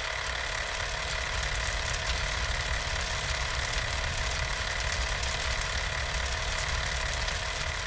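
Sound effect of an old film camera running: a steady mechanical whir with a fast, fine rattle and a low rumble beneath.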